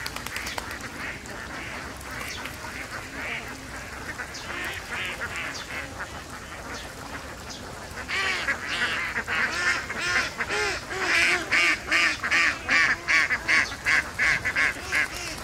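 Flock of domestic ducks quacking in a busy chorus. It gets much louder about eight seconds in, ending in a run of loud, rapid quacks at about three a second.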